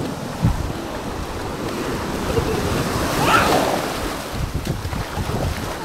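Sea waves washing onto a sandy beach, with wind buffeting the microphone; a wave surges louder about halfway through.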